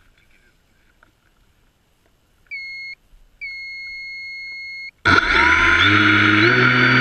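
Two electronic beeps from the quadcopter's onboard buzzer, a short one and then a longer steady one. About five seconds in, the H-quad's brushless motors and propellers start up suddenly and run loud, their whine shifting in pitch as the throttle changes.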